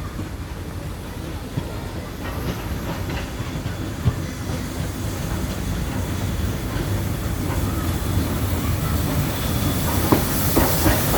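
Train headed by the DT668 steam locomotive and R167 diesel-electric locomotive running into the station, its rumble growing steadily louder. Wheels click over the rail joints near the end.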